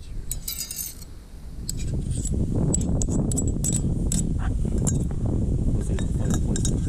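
Wind rumbling on the microphone, with scattered light clicks and clinks from camp cooking gear over it, and a quick rattle of ticks about half a second in.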